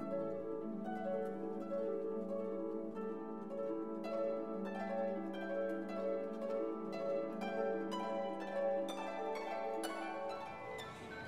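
Instrumental background music of plucked, harp-like notes over a held low tone, fading out about ten seconds in.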